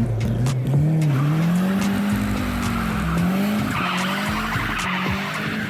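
Car engine running with its pitch rising and falling as the revs change, joined by a hiss that grows louder about four seconds in.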